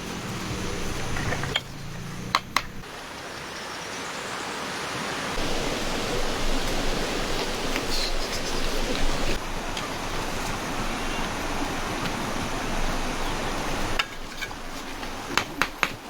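Water rushing steadily, growing louder over the first few seconds, then cutting off suddenly near the end. A few sharp knocks come shortly after the start and again just before the end.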